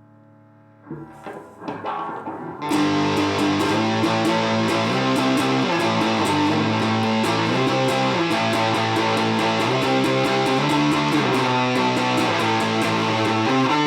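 Electric guitar through a RAT-style distortion pedal into a miked transistor amplifier. A note fades out, a few quiet picked notes follow, and then, about three seconds in, a loud distorted riff with fast, even picking starts and keeps going.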